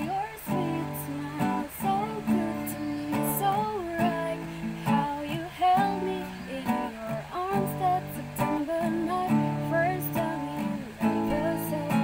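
Acoustic guitar strummed in chords, with a woman's voice singing a melody over it.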